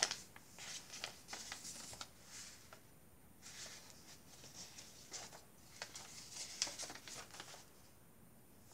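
Paper pages and inserts of a handmade junk journal rustling as they are handled and turned, in a string of short rustles and small clicks with a couple of brief lulls.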